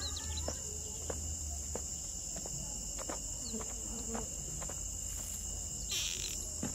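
Steady high-pitched chirring of crickets, with scattered faint light clicks as fingers handle a small metal spring coupler on the model train.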